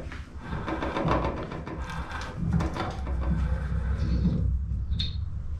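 Hand die in a die stock being turned to cut a thread on a metal rod held in a bench vise: irregular metal scraping and small clicks as the die cuts, with one sharp click about five seconds in.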